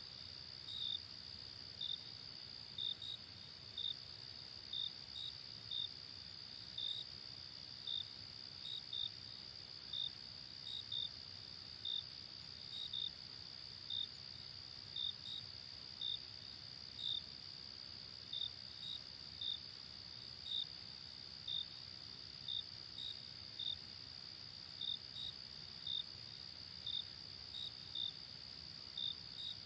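Crickets chirping at night: a steady high-pitched trill underneath, with a louder cricket giving short chirps about once a second, sometimes two close together.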